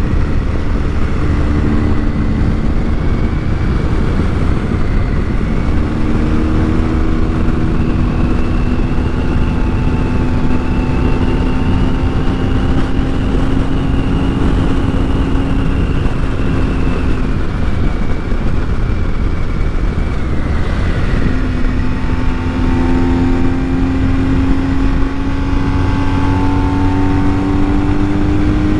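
BMW R1250 boxer-twin motorcycle engine running under load up a mountain road. Its note rises slowly with speed, eases off about twenty seconds in, then climbs again.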